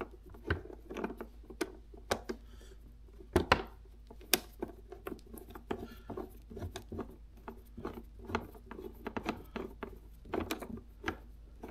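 T-handle driver turning a shoulder bolt into a plastic motorcycle fairing panel by hand: a run of small, irregular clicks and ticks, with a few sharper clicks among them.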